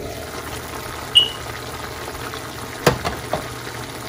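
Pan of sautéed chayote and pork sizzling and simmering as the glass lid comes off. There is a short high clink about a second in and a sharp knock near three seconds in, with two lighter knocks after it.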